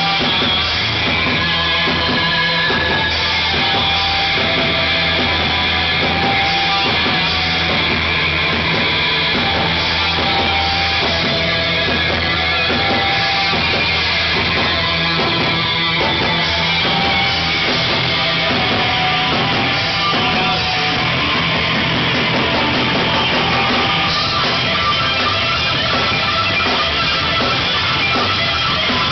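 Live heavy metal electric guitar solo played through Bogner amplifier cabinets: a melodic lead line of held and stepping notes over sustained low notes that change about halfway through.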